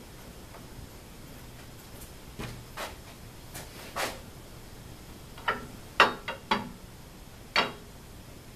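Handling knocks of metal parts on an aluminium extrusion frame: a scattered series of short knocks and clicks, coming faster in the second half, the sharpest about six seconds in.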